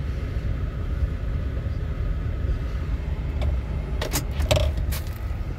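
2011 Cadillac Escalade's V8 engine idling, a steady low rumble heard from inside the cabin, with a few brief sharp clicks about four seconds in.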